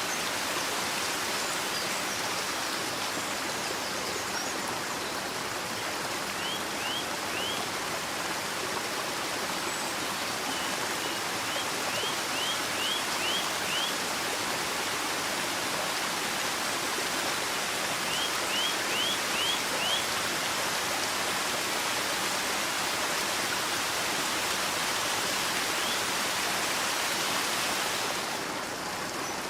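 Running water of a stream, a steady rushing, with a bird giving three short runs of quick chirps. Near the end the water sound turns slightly quieter and duller.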